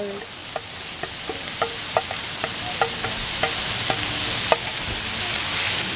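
Pork, shrimp and vegetables sizzling in a hot frying pan while chopped celery is scraped in off a plate with a ladle, the ladle tapping and clinking against the plate about twice a second. The sizzle grows louder over the last couple of seconds as the celery lands in the hot oil.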